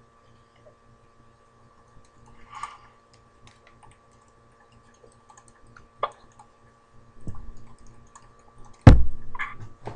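Faint scattered clicks over a quiet room, then a sudden loud low thump near the end that dies away over about a second.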